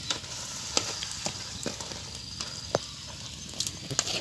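Metal ladle stirring seafood in a steel wok over a wood fire: irregular clicks and knocks, about two a second, over a steady hiss of the simmering pan.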